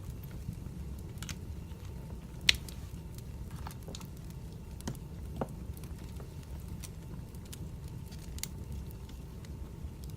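Wood fire crackling: scattered small pops and snaps over a steady low rumble, with one sharp, louder pop about two and a half seconds in.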